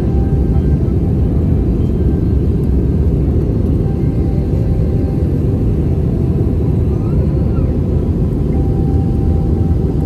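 Airliner cabin noise in flight: the steady low roar of the jet engines and airflow, heard from inside the cabin at a window seat.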